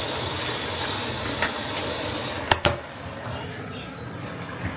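Rice frying in a large steel pot, a steady sizzling hiss with light scraping ticks from a metal spoon stirring it. About two and a half seconds in come two sharp metal clacks close together, like the spoon knocked on the pot's edge, and the hiss is a little lower after them.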